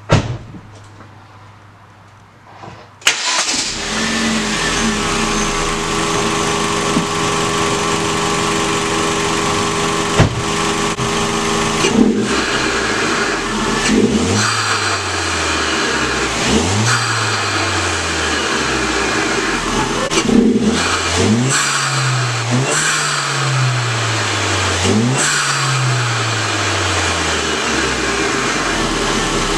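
A thump at the very start, then a 2010 Hyundai Genesis Coupe's 2.0-litre turbocharged four-cylinder engine, fitted with a new cold air intake, starts about three seconds in and idles. From about twelve seconds in it is revved about five times, each rev rising and falling in pitch.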